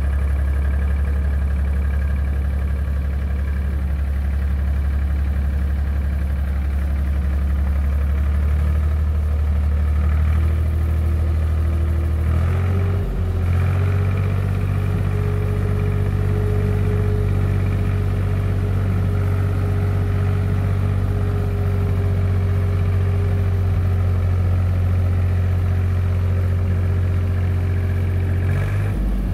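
Zetor 4712 tractor's three-cylinder diesel engine running steadily as the tractor drives along. About halfway through the engine note dips briefly, then settles at a higher pitch; it dips briefly again near the end.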